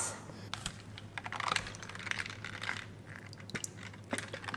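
Scattered light clicks and taps from a metal spoon and a plastic-capped fish sauce bottle being handled over a clay mortar while the sauce is poured onto the spoon.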